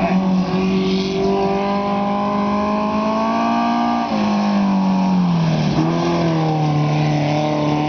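Mini sprint car's engine running hard on a speedway lap: the pitch climbs slowly for about four seconds, then drops sharply and falls away as the car comes past close by, then holds steady.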